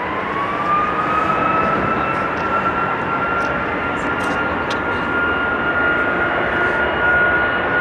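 Jet engines of a British Airways Boeing 767-300ER spooling up to takeoff power. A whine rises in pitch over the first second, then holds steady above a broad rush of jet noise.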